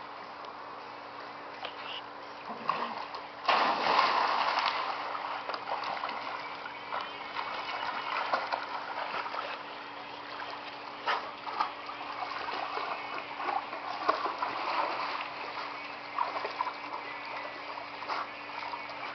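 A dog goes into a swimming pool with a loud splash about three and a half seconds in, followed by irregular splashing and sloshing as dogs paddle through the water.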